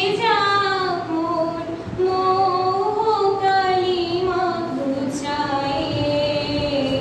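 A young woman singing solo into a microphone, holding long notes that slide from one pitch to the next, with the melody stepping lower toward the end.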